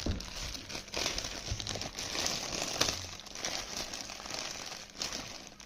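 Parcel packaging crinkling and rustling as it is handled, a dense run of crackles with a few sharper crackles along the way.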